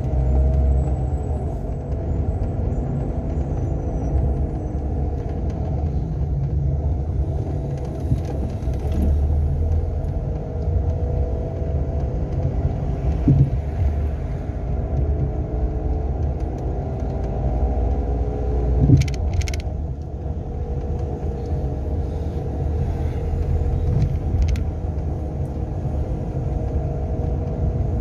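Renault Sandero running on the road with a steady rumble and a drifting whine over it, the noise of a failing alternator bearing. Two brief knocks come about halfway and two-thirds of the way through.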